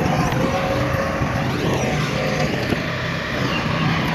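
Heavy diesel earthmoving machinery running steadily, with an even engine drone and low rumble.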